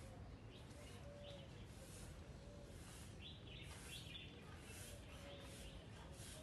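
Faint background ambience with small birds chirping and twittering on and off over a low steady rumble.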